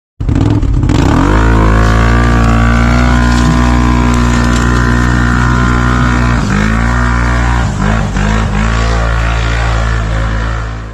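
ATV engine revving: it climbs in revs about a second in and holds high and steady, then drops and picks up again several times in the second half.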